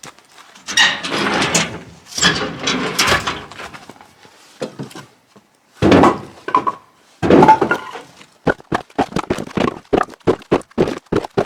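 Split firewood clattering and knocking as logs are handled and tossed together: heavy clattering spells in the first half, then from about eight seconds in a quick run of sharp wooden knocks, two or three a second.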